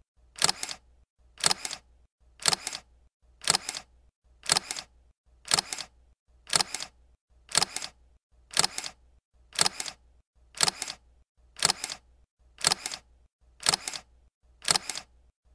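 Camera shutter click, a quick double click repeated about once a second.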